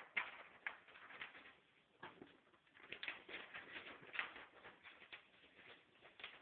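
Paper documents rustling and crinkling as they are handled and folded, a scatter of soft irregular crackles.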